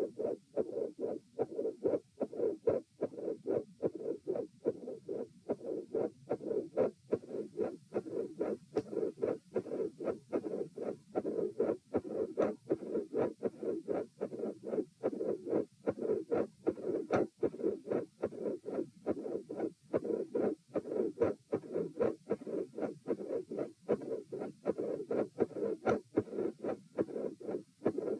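Heart sounds with a mid-systolic murmur: a steady run of beats, each with a rushing noise in systole. This is the flow murmur heard with an atrial septal defect or patent foramen ovale.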